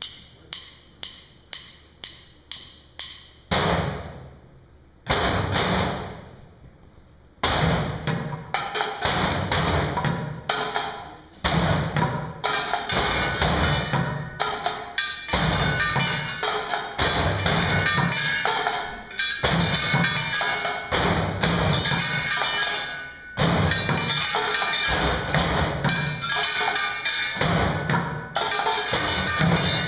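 Junkyard percussion band: drumsticks on plastic buckets, plastic barrels and a metal trash can. It opens with a steady run of sharp clicks, about two a second, then two big hits that ring and die away, and about seven seconds in the whole group comes in with a driving rhythm of deep thuds and clattering strokes.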